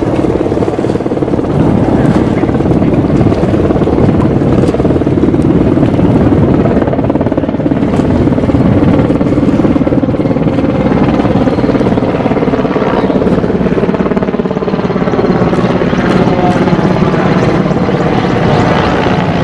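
Mi-17-type military helicopter in flight, its rotor and turbine noise loud and steady as it flies toward the camera.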